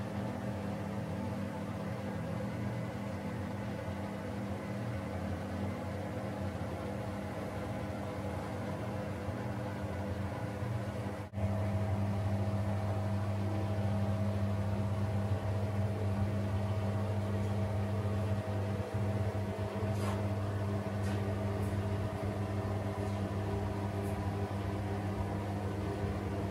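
Steady electric hum of a small bathroom extractor fan, with a low droning tone; the drone gets louder about eleven seconds in.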